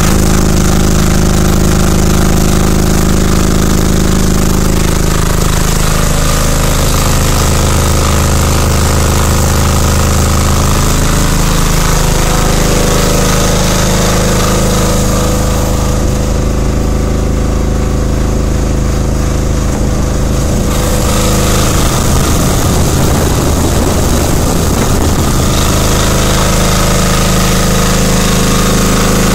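5 kW silent diesel generator engine running steadily with no load, with a hard diesel clatter, cold at −5°C.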